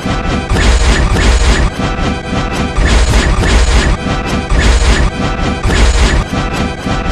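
Loud crashing and smashing film sound effects mixed with music, with heavy bass hits repeating about every second and a half.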